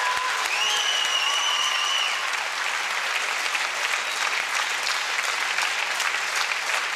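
Audience applauding, with dense, steady clapping throughout. A single high held note sounds over it for about a second and a half near the start.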